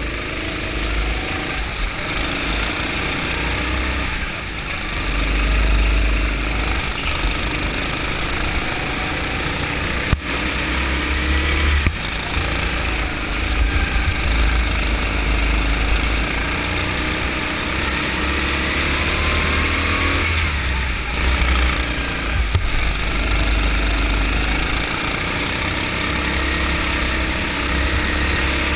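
Go-kart engine heard from on board the kart, its pitch rising and falling as it revs up and down through the corners, with a heavy low rumble throughout. Two sharp knocks come about ten and twelve seconds in.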